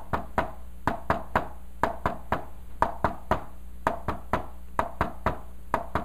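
Quick taps on a whiteboard in groups of three, about one group a second, tapping out the 'one-two-three' rhythm of a third heart sound (S3, ventricular gallop).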